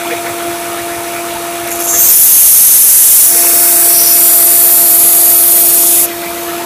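Grizzly 1x30 belt sander running with a steady hum. About two seconds in, a machete blade is pressed to the abrasive belt and ground for about four seconds, giving a loud hiss that stops suddenly. The grinding touches up a spot on the edge to raise a burr.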